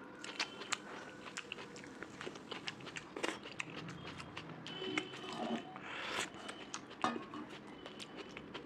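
Close-miked chewing of a curry-and-rice meal: crunchy bites and wet mouth clicks that keep coming, with a short hissing noise about six seconds in.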